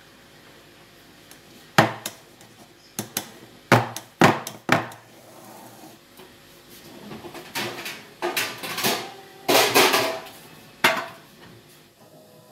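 Metal bakeware being handled on a kitchen counter: a round cake tin and a metal baking tray. There are several sharp clanks and knocks in the first half, then scraping and rustling as the tin is set on the tray, with a last knock near the end.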